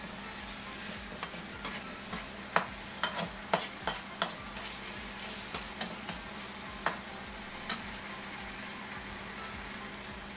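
Metal ladle clinking and scraping against a metal wok as softened tomatoes are crushed and stirred, over a steady frying sizzle. The clinks come thick in the first few seconds, then only now and then.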